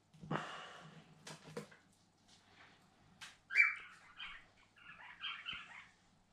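Pet cockatiels calling: one loud squawk about three and a half seconds in, followed by a quick run of short chirps. Near the start there is a brief rustle and a few light clicks.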